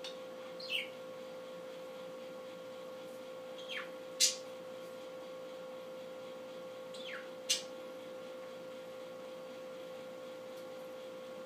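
A bird chirping: about five short calls that fall in pitch, mostly in pairs, the loudest about four seconds in, over a steady hum.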